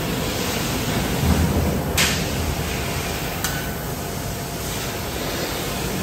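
HSG TL660S laser tube cutter working a large steel pipe held in its chucks: a steady hiss of machine noise with a low rumble about a second in. A sharp click comes about two seconds in and a fainter one a second and a half later.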